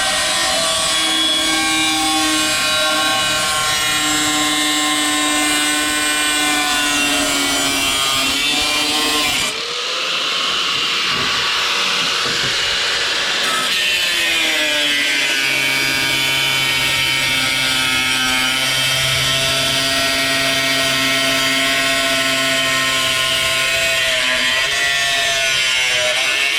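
Electric angle-grinder-style cutoff tool with a 4-inch cutoff wheel cutting through sheet steel, running with a steady whine. Its pitch dips and recovers twice, about ten and fifteen seconds in.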